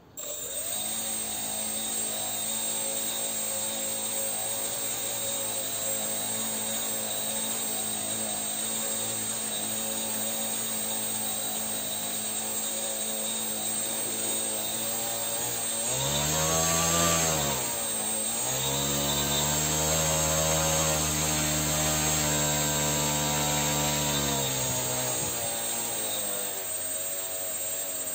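Electric RC airplane motor spinning a propeller as a fan, with a steady high-pitched whine. It starts suddenly, runs steadily, speeds up about sixteen seconds in and then slows, runs faster again for several seconds, and slows near the end.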